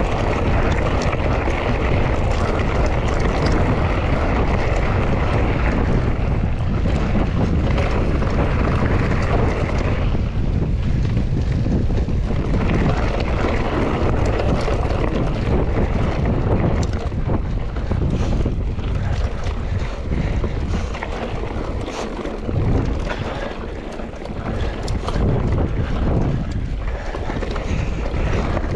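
Mountain bike riding over a rough trail: wind buffeting the microphone over tyre noise, with many short clicks and rattles from stones and the bike, more of them in the second half.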